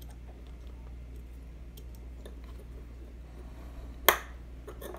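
Faint clicks of small metal knife parts being handled as the D-shaped pivot brace is fitted onto a Spyderco Manix2 Lightweight, with one sharp click about four seconds in.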